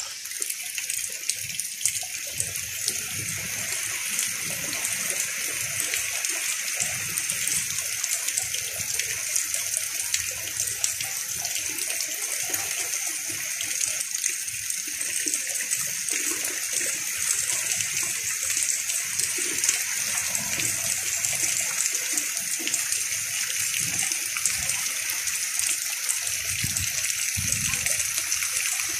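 Heavy rain pouring down in a storm: a dense, steady hiss, with short low rumbles coming and going underneath.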